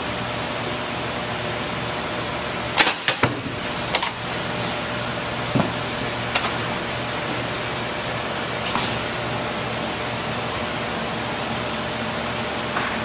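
A carton holding a four-bottle wine pack drops from a drop tester's clamp and hits the floor mat about three seconds in: a few sharp knocks in quick succession, with another knock a second later. Lighter clicks of the tester's arms follow, over a steady hum of ventilation.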